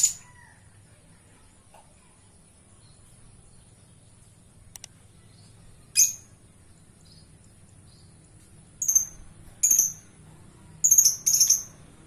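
Lovebird giving short, shrill, high chirps: one at the start, one about six seconds in, then four in quick succession near the end.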